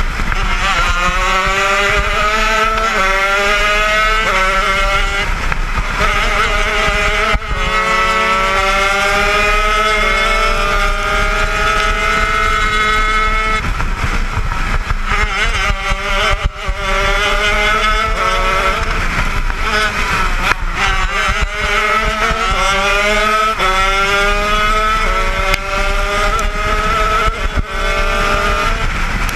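80cc two-stroke shifter kart engine at racing speed. Its pitch climbs through each gear and drops sharply at every upshift, then falls away on braking for the corners before climbing again.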